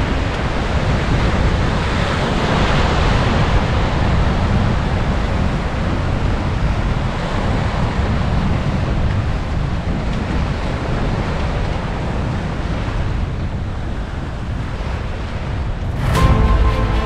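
Surf washing in over a sandy beach, with wind buffeting the microphone. Music comes in sharply about a second before the end.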